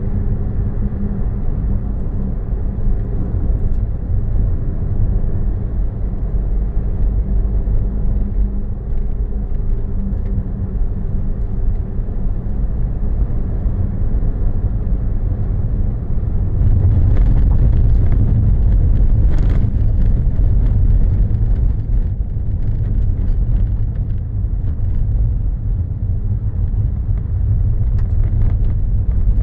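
A car driving, its engine and tyres making a steady low rumble as heard by an in-car camera. It grows louder for a few seconds past the middle, with one short sharp knock.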